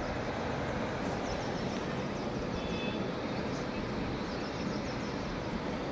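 Steady rushing noise of a wide, muddy river in flood, with a few faint high chirps over it.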